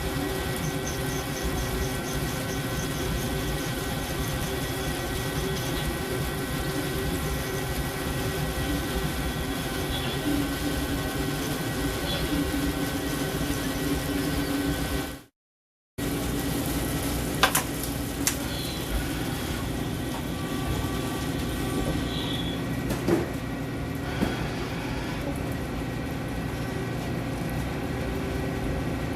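CNC machine running through a machining cycle: a steady mechanical hum with several held tones over a hiss. It cuts out completely for under a second about halfway through, and a few sharp clicks follow.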